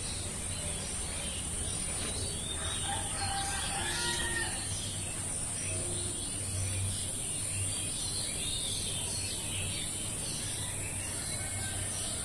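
A rooster crows once, about three seconds in, among small birds chirping.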